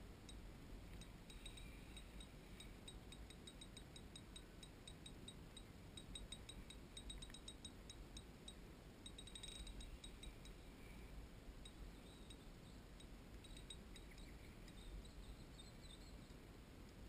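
Faint, irregular light ticking from a fishing reel as a hooked fish is played on a bent light rod. The ticks come in quicker runs about six and nine seconds in, over near silence.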